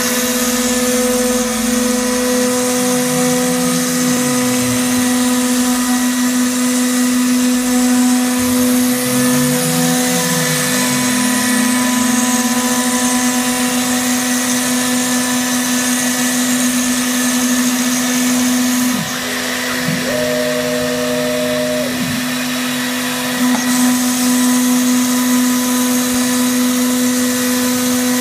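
CNC router spindle running at high speed and cutting into a white sheet, a steady high whine over cutting noise. Lower whines rise and fall twice in the first half as the machine moves. About two-thirds through, the sound briefly dips and changes pitch for a couple of seconds.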